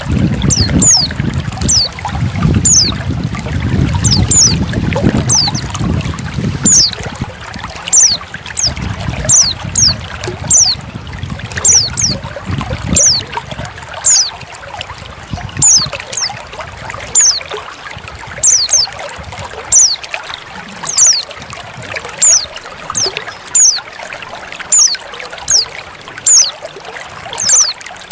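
Female white-eye (pleci) calls over trickling water. The calls are short, high notes that drop in pitch, coming about once a second and often in pairs, and they are the loudest sound. The trickling water runs underneath, heavier and lower for the first several seconds.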